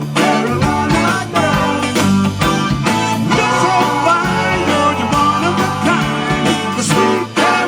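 Live band playing a Motown song with a steady drum beat, bass and guitar, and some singing.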